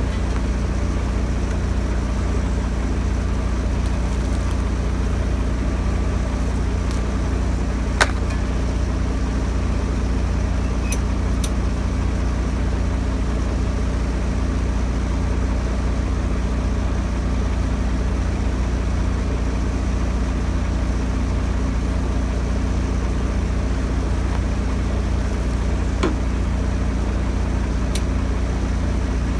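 Heavy engine idling steadily with a deep, even drone. A few sharp metallic clicks or knocks come over it, the loudest about 8 seconds in.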